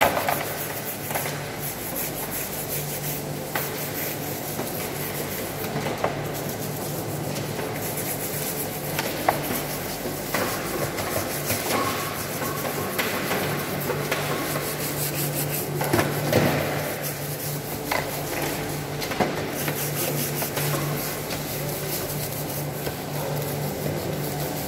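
Steady low machinery hum with scattered knocks, clatters and scraping as crabs and plastic crates are handled on a stainless steel sorting table; a few louder knocks stand out.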